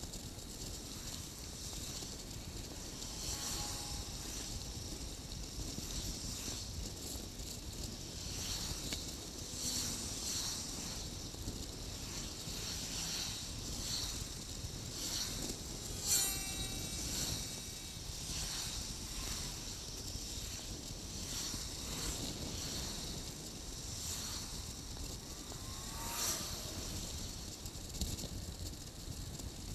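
Wind buffeting the microphone of a bicycle-mounted camera over tyre and road noise while riding, with many small rattles and clicks. About halfway through comes a brief high-pitched tone, the loudest moment, and a fainter one near the end.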